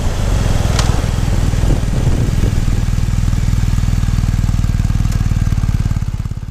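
BMW R 1250 GS Adventure's 1254 cc boxer twin idling through its stock silencer, an even low pulsing beat. A single sharp click about a second in.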